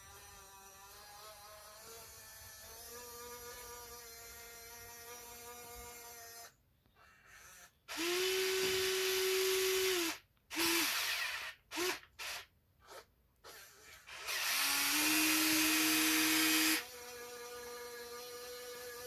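Small electric motors of a radio-controlled model excavator whining. A steady, quieter whine runs for about the first six seconds, then louder whines start and stop abruptly in several bursts, the longest about two seconds each, before a quieter steady whine returns near the end.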